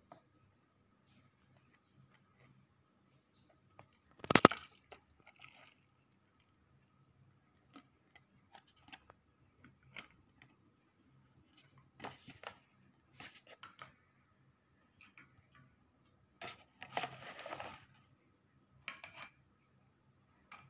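Fork, paper noodle cup and metal mesh strainer being handled while cup ramen noodles are drained: scattered light clicks and knocks. There is one loud knock about four seconds in and a short rustling burst a few seconds before the end.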